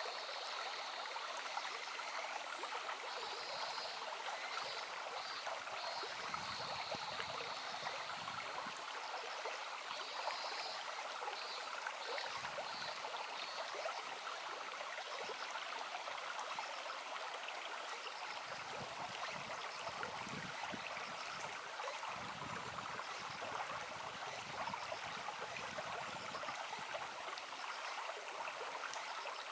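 A small brook babbling steadily over stones.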